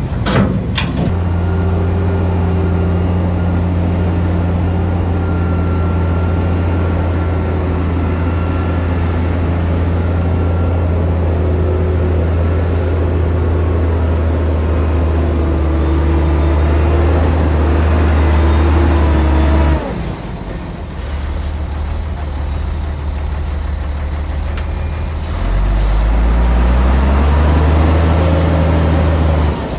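Heavy diesel engine of earthmoving machinery running steadily under load. About two-thirds of the way in the sound changes abruptly to a lower engine note, which rises as the engine revs up and then cuts off just before the end.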